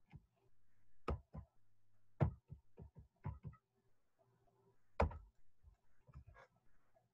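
Irregular clicks and light knocks, a few in quick pairs, the loudest about five seconds in, over a faint steady low hum in a small room.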